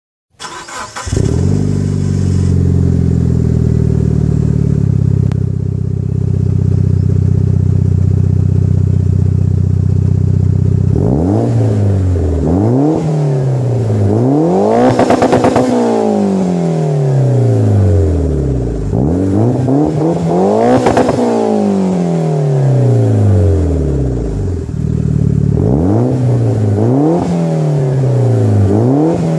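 Mitsubishi Lancer Evolution VII's turbocharged 4G63T 2.0-litre inline-four, heard through a Greddy Ti-C cat-back exhaust. It idles steadily for about ten seconds, then is revved in a run of short blips and two longer, higher revs, each falling back toward idle.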